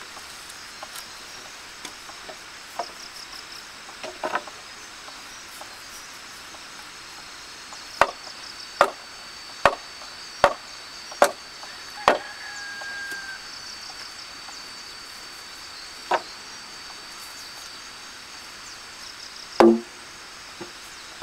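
Large wooden mallet striking timber beams: a few faint knocks early, then a run of about six sharp knocks roughly a second apart, then two more spaced further apart near the end. Insects chirr steadily and high in the background.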